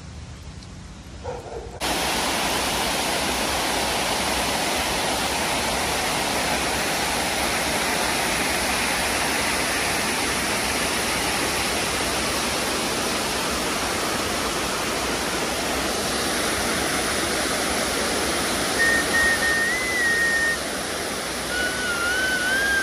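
Flood-swollen creek rushing and churning over rocks: a loud, steady roar of turbulent whitewater that starts abruptly about two seconds in. Near the end, a high wavering whine sounds twice over the water.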